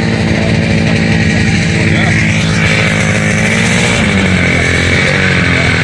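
Vintage snowmobile's two-stroke engine running steadily close by, its pitch dipping and then settling about four seconds in.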